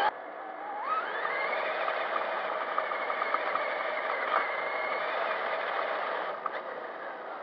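Electric RC truck's motor and drivetrain whining as the truck accelerates over beach sand, heard from a camera on the truck itself. The pitch climbs about a second in, holds steady with a few light clicks, and falls away about six seconds in as the truck slows.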